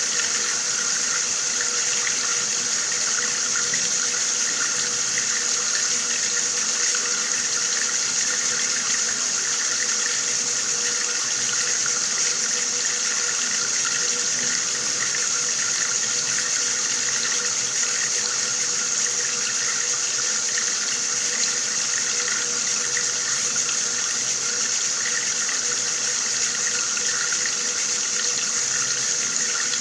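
Water running steadily from a tap: a constant, unchanging hiss of pouring water, with a faint steady tone underneath.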